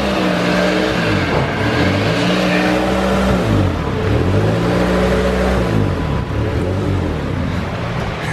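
Car engine revving up and down over and over, its pitch rising and falling in smooth swells about every two seconds.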